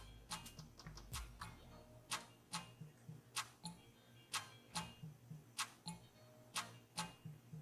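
Background music with a soft ticking, clock-like beat: sharp ticks in pairs over short low notes, repeating evenly.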